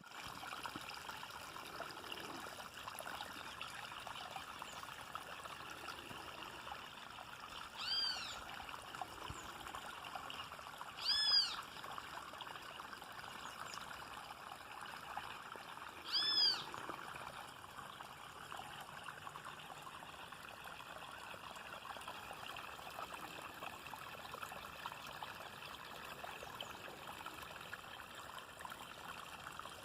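Rain falling steadily with water trickling and running off. An animal calls three times, a few seconds apart, each call short and rising then falling in pitch.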